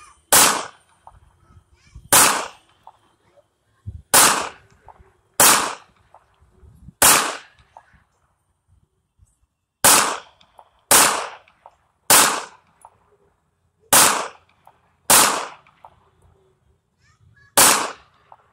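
Canik TP9 SFX 9mm pistol firing eleven single shots, spaced irregularly one to three seconds apart, each trailing off in a short echo.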